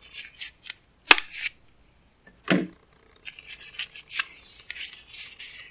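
Scissors snipping through a flattened cardboard toilet paper roll, with a sharp click about a second in and a duller knock a moment later, then a rustle of the cardboard being handled and folded.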